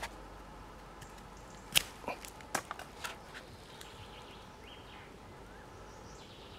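A quick cluster of sharp clicks about two seconds in from a grafting knife on a thin fruit-tree branch, as the blade is set into the slanted cut to make the tongue of a whip-and-tongue graft. Faint bird chirps come later.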